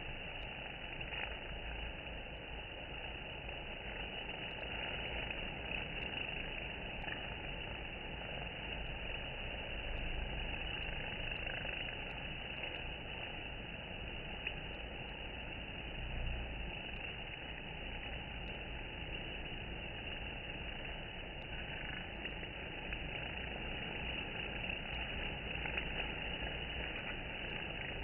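Honeybees buzzing at a wooden hive entrance: a steady, even hum of many wings with no breaks.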